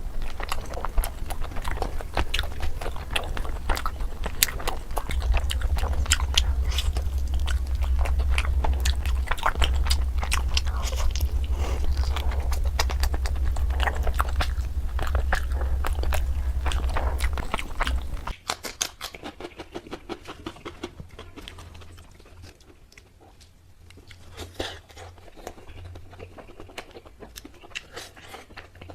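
Close-miked chewing and biting of tandoori chicken: wet, crunchy mouth sounds. They are loud and dense, then drop suddenly to quieter, sparser chewing about two-thirds of the way through.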